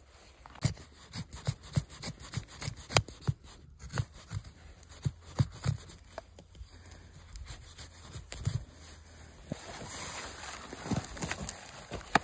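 Fixed-blade knife (Halfbreed Blades ERK-01) chopping and splitting a pine branch into kindling: a string of sharp knocks and cracks as the blade strikes and splits the wood. Near the end the knocks thin out under a steadier rustling.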